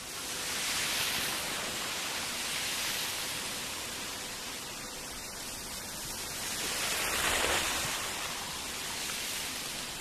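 Wind rushing over a helmet-mounted camera microphone as a mountain bike rides a stony desert trail: a steady hiss that swells about a second in and again about seven and a half seconds in.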